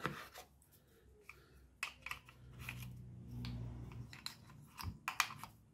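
Small sharp clicks and taps of a vape pod stick and its metal pocket-charger case being handled, the stick slid into and out of the case, with a cluster of clicks near the end.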